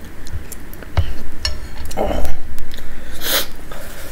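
Eating and handling sounds: small clicks of a metal spoon against a bowl and mouth sounds of chewing, then near the end a short rustle as a roll of paper towels is handled.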